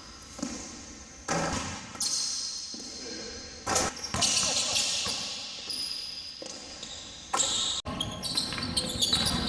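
Basketball bouncing on a hardwood gym floor, a few separate bounces ringing with echo in a large empty gym. Near the end the sound cuts abruptly to a busier court with ball bounces and voices.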